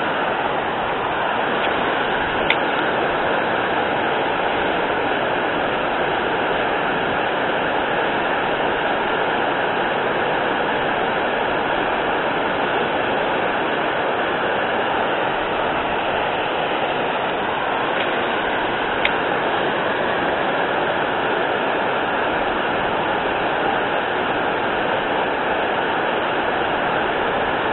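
Steady rushing of river water spilling over a low concrete weir, with two brief ticks, one a few seconds in and one past the middle.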